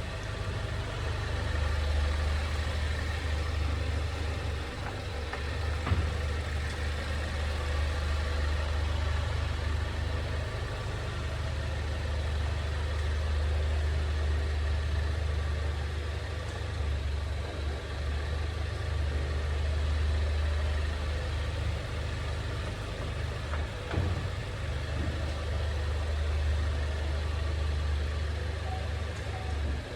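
Steady low rumble of a 2020 Ford Mondeo wagon heard from inside the car, with a sharp knock about six seconds in and a fainter one near 24 seconds.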